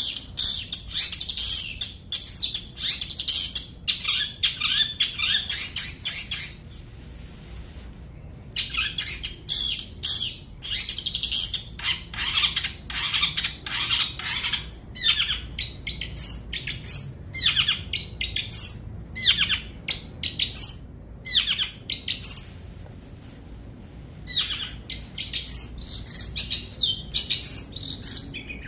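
Long-tailed shrike (cendet) singing a fast, varied song of chirps and warbling notes, in bouts broken by two short pauses.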